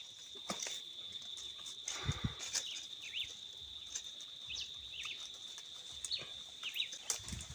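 Faint outdoor ambience: a steady high-pitched insect drone with short chirping bird calls that come now and then through the middle, and a few scattered faint knocks.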